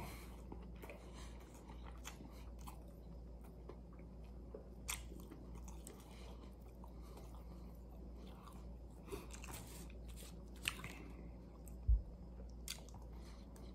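Close-up chewing of a maple-syrup-drizzled bacon chicken croissant sandwich: faint, wet mouth sounds with scattered clicks and a few sharper ticks. A short dull thump comes near the end.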